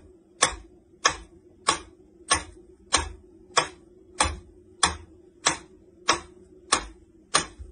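Mechanical pyramid metronome ticking at a steady tempo, about three sharp ticks every two seconds.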